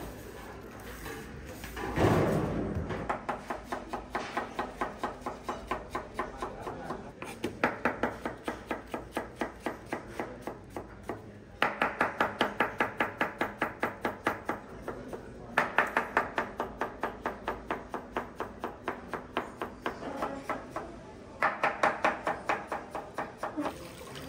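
Knife chopping rapidly on a cutting board, about four to five strokes a second, in runs of several seconds with short pauses. A heavy thud about two seconds in.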